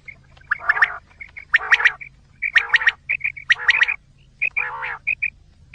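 Recorded quail calls played as a hunting lure: runs of short, clear, high notes alternating about once a second with longer harsh, raspy calls, over a faint steady low hum.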